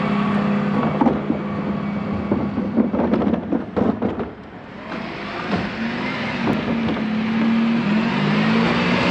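Dennis Elite 6 refuse truck's diesel engine running steadily, with a run of knocks and rattles in the first half. About six seconds in, the engine note rises a little as the truck pulls forward.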